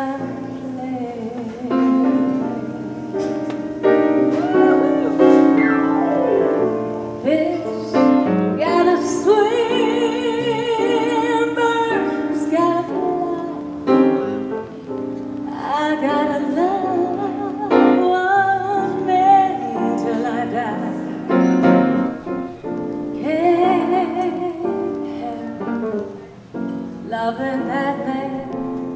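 Music: a woman singing long held notes with strong vibrato over piano accompaniment.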